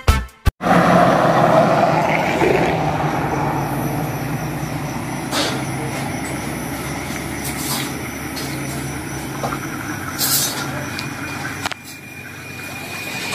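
Roadside traffic noise: a steady hum of vehicle engines and tyres, with a few brief clicks and a short hiss about ten seconds in.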